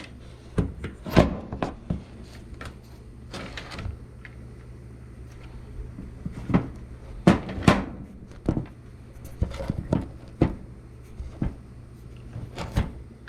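Irregular knocks and clunks of washing machine parts and panels being handled and fitted back into place, the loudest about a second in and a pair around seven seconds in.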